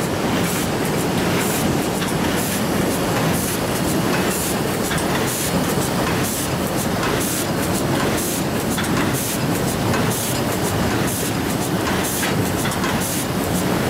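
Huatai HT1500P automatic die cutting and stripping machine running, its sheet feeder taking corrugated board off the pile. A steady mechanical clatter with short sharp ticks about twice a second, one per machine cycle.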